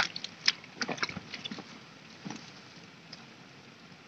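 Light splashes and rustles of a hand grabbing through shallow rice-paddy water and wet stubble: a cluster of short sharp ones in the first second and a half, then a few scattered ones.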